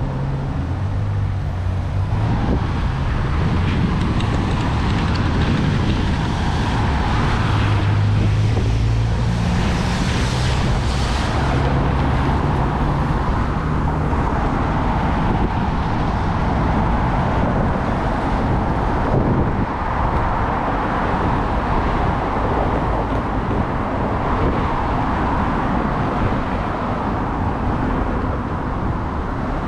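Steady road traffic noise: car engines humming and tyres on the road, with a brief louder hiss about ten seconds in.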